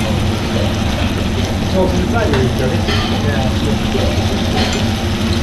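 Girolle mushrooms sizzling as they sauté in a stainless steel pan, over a steady low hum and distant voices.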